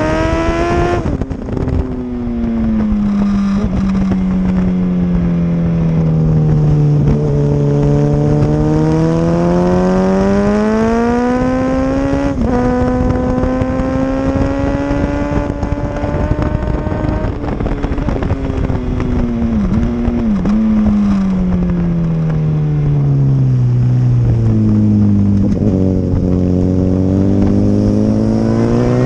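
An engine running continuously, its pitch rising and falling smoothly every several seconds as the revs change.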